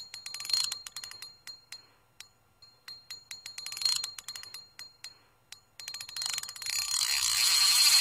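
Outro sound effect: rapid runs of sharp mechanical clicking that bunch up and thin out twice, then a loud hiss building from about six seconds in.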